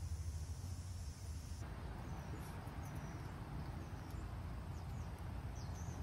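Outdoor garden ambience: a steady low rumble, a high insect drone that cuts off about one and a half seconds in, then a few short, falling bird chirps.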